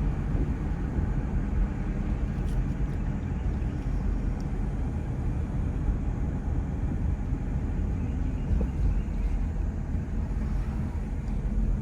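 Steady low rumble of a car being driven, with engine and tyre noise heard from inside the cabin.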